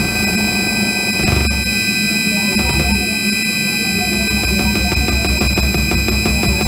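Live electronic noise music: a buzzing drone with several steady high whining tones. A low bass throb pulses rapidly underneath from about two and a half seconds in.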